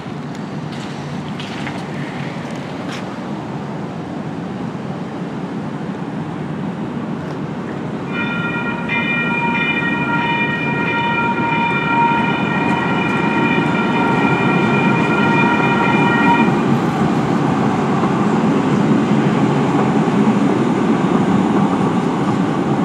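Siemens U2A light rail train approaching and rolling through a street crossing, its rumble growing louder from about eight seconds in. Partway through, the train's horn sounds one long steady note for about eight seconds as the front of the train reaches the crossing.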